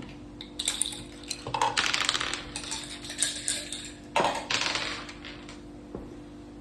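Dice and playing pieces clattering and clicking on a mak saka (Thai backgammon) board: a long flurry of clicks, then a second shorter burst about four seconds in.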